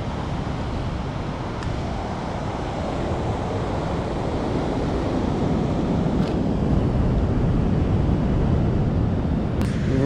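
Steady rush of ocean surf mixed with wind buffeting the microphone.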